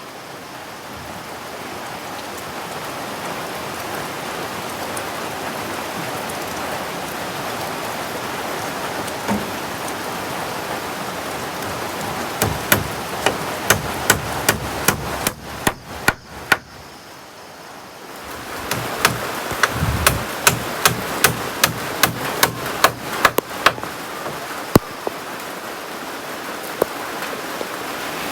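Heavy rain falling steadily. Two runs of sharp knocks come through it, about three or four a second: one around halfway through and another a few seconds later.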